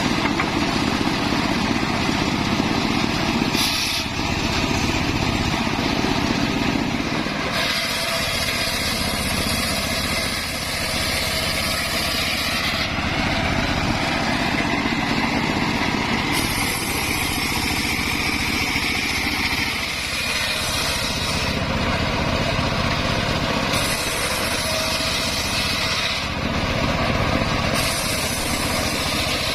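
Homemade engine-driven circular saw running continuously while cutting wood; the sound brightens and dulls every few seconds as the blade goes into and out of the cuts.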